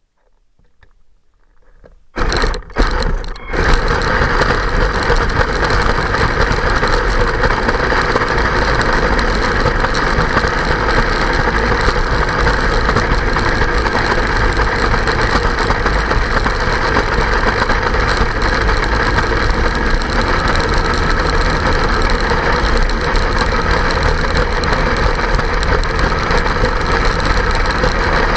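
Kyosho Blizzard radio-controlled snowcat, its electric motor, gearbox and tracks running. It starts with a few uneven jolts about two seconds in, then runs steadily.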